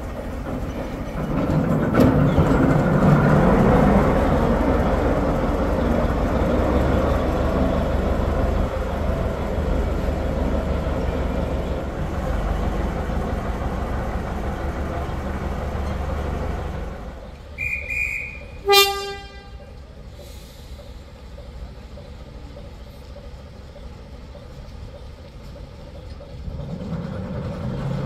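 Model train running on a layout for about seventeen seconds, then dying away. As it stops there is a brief high beep, then a single short horn toot from a sound-fitted locomotive.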